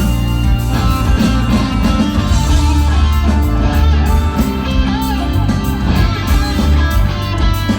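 Live rock band playing an instrumental passage, electric guitar to the fore over bass and drums, the guitar line wavering and bending in pitch.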